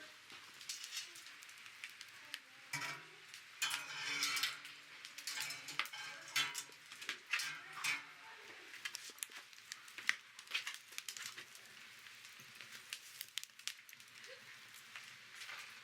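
Salt-sprinkled Pacific saury sizzling as it grills over a wood campfire, with the fire crackling. It is busiest and loudest between about 3 and 8 seconds in.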